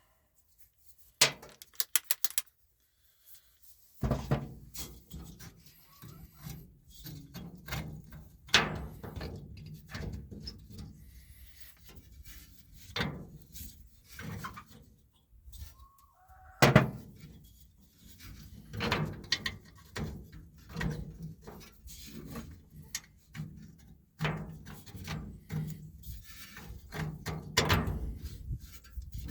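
Hand tools working on the New Holland 315 baler's feeder bar to unbolt a tooth: a thunk and a quick run of clicks about two seconds in, then irregular metal clinks and knocks, with one loud knock a little past halfway.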